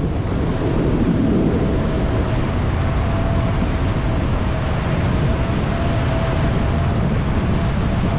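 Steady rush of wind buffeting the microphone of a skydiver's camera in parachute canopy flight, with a faint steady high tone running through it.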